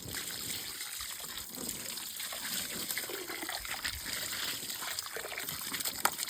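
Water splashing and trickling steadily, with many small irregular splashes and a sharper splash near the end.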